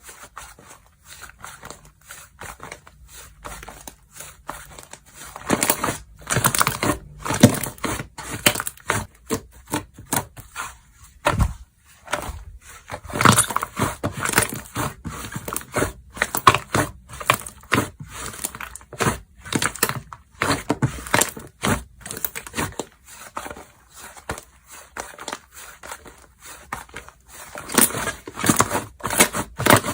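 Slime being squeezed, pressed and stretched by hand, giving off dense crackling and clicking pops. It is soft for the first few seconds and gets louder in stretches, the loudest near the end.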